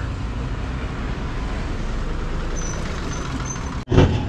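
Steady low vehicle engine rumble that cuts off abruptly near the end, followed by a brief louder noise.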